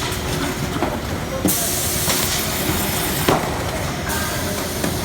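Comarme F2000 automatic case erector running, a steady mechanical clatter with two bursts of hiss, about a second and a half in and again near the end, and a couple of sharp clacks.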